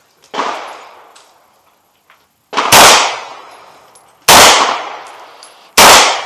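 Gunshots fired one at a time, about a second and a half apart, four or five in all, each sharp crack trailing off in a long echo.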